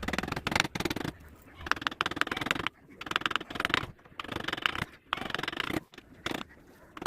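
Hand carving tool cutting and scraping wood in repeated short rasping strokes, about one a second with brief pauses between them.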